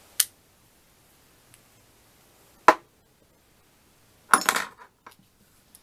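A few sharp clicks and knocks from small plastic makeup items being handled: one just after the start, a louder one midway, and a quick clatter of several about four and a half seconds in.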